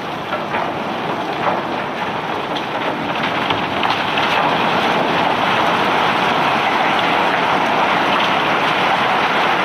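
Loose rock and ore pouring and rattling off a self-unloading barge's conveyor: a steady rushing clatter with separate stone clicks in the first few seconds, growing louder and more even about four seconds in.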